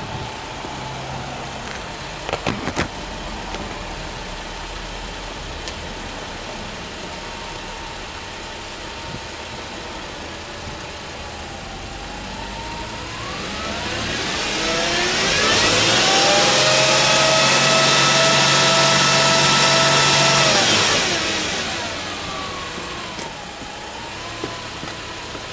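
Subaru Legacy B4 3.0R spec B's 3.0-litre flat-six boxer engine idling, then revved up smoothly about twelve seconds in, held at high revs for about five seconds, and let fall back to idle.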